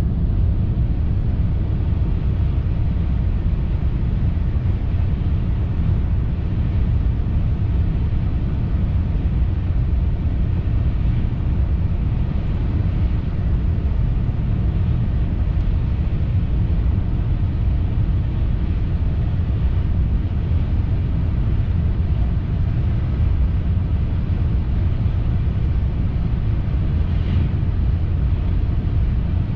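Steady low rumble of a TGV Duplex high-speed train heard from inside the passenger cabin while it runs.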